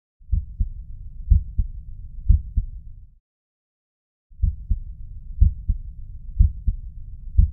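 Heart sounds heard through a stethoscope: paired lub-dub beats about once a second, with a low hiss between the beats, in two stretches separated by a pause of about a second.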